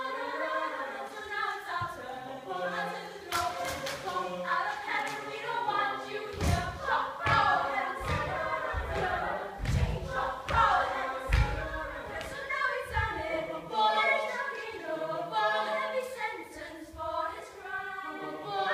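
A group of voices singing together. A run of low thumps comes in the middle.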